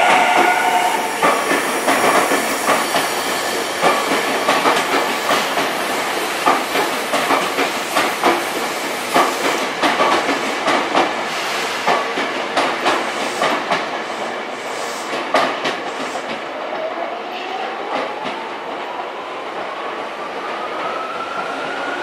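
Tokyu 5000 series electric train rolling out slowly, its wheels clicking over rail joints and points in a steady clickety-clack. A rising electric motor whine comes in about three-quarters of the way through.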